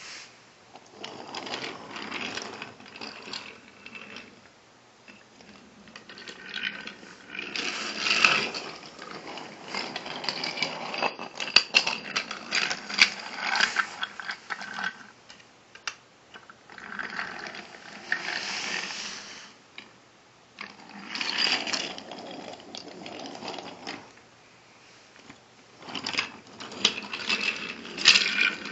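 A battery-powered Thomas toy engine's small geared motor whirring in spurts of a few seconds, starting and stopping several times. Sharp clicks and clatter of the toy track pieces being handled come through, thickest in the middle.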